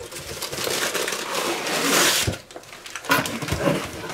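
Paper packaging rustling and crinkling as a bagged lamp is pulled out of a cardboard box of crumpled packing paper, with a single knock a little after two seconds in and more rustling near the end.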